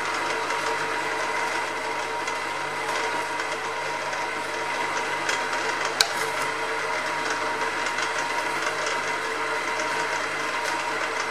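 Hare and Forbes HM48 milling machine running steadily: a continuous mechanical hum with a few steady tones over it, and one sharp tick about six seconds in.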